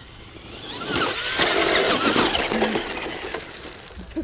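RC car driving close by at speed: a rush of motor and tyre noise with a whine that slides up and down. It grows loud about a second in, then fades away toward the end.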